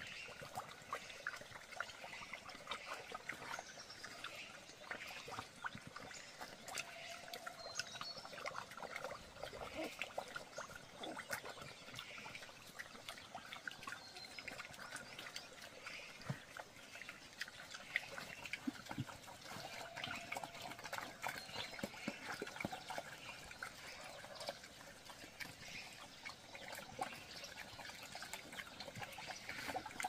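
Pigs slurping and lapping water from a concrete trough, with many small wet splashes and clicks.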